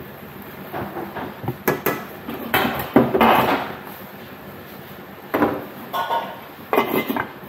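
Metal spoon and steel lid clattering against a cooking pot: a run of separate knocks and scrapes, busiest about three seconds in and again near the end.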